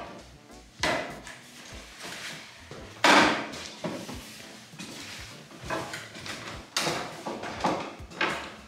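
Wooden folding attic ladder being unfolded and climbed: irregular knocks and clatter of its wooden sections and treads, the loudest about three seconds in, then several more knocks as it is climbed.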